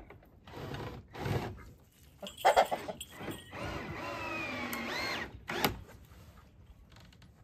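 Repair work on a wooden chicken-coop door: a few sharp knocks and clatter of wood, then a power drill running for about two seconds with its pitch sinking under load as it drives a screw, a quick rev near the end and a last knock.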